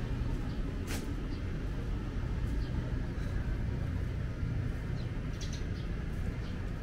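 City street ambience: a steady low rumble of traffic, with a few short light ticks and one sharper click about a second in.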